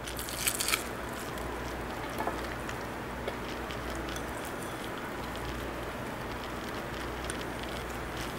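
Steady low hiss with a few soft light ticks in the first half, as chopped green onion is sprinkled by hand onto a platter of roasted cauliflower.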